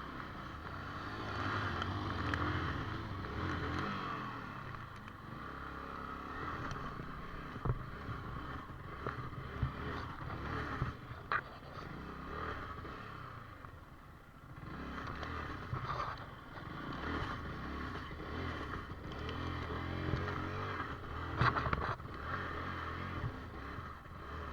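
Yamaha R15 V4's single-cylinder engine running and revving unevenly as it pushes through a muddy track, swelling and dropping several times, with a few sharp knocks and scrapes from the bike hitting the rough ground.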